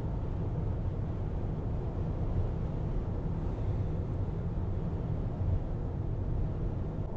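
Steady low road and tyre rumble heard from inside a car cabin at highway speed.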